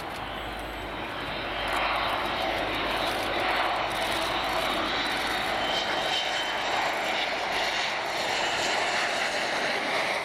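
Twin General Electric F404 turbofans of an F/A-18 Hornet on landing approach with its gear down: a steady jet roar that grows louder about two seconds in as the jet draws close.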